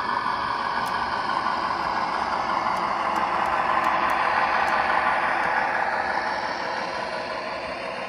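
MTH O-scale "Doodlebug" DC-3 rail inspection car model running along the track, a steady rolling rumble that grows louder as it passes close, peaks about halfway through, then eases off.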